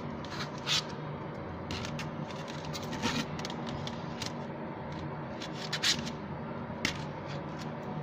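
Handling noise: a handful of short, sharp plastic clicks and scrapes from hands moving a black plastic case and a phone, over a steady background hum.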